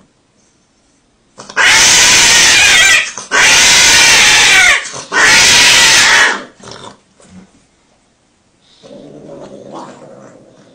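Domestic cat yowling: three long, loud yowls in quick succession, each lasting about a second or more, followed by a fainter, lower sound near the end.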